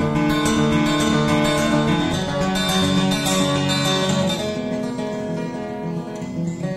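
Background music led by acoustic guitar, with sustained notes changing in steps.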